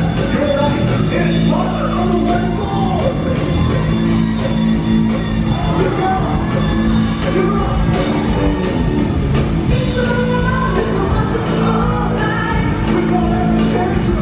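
Loud rock music with a singing voice, playing steadily throughout.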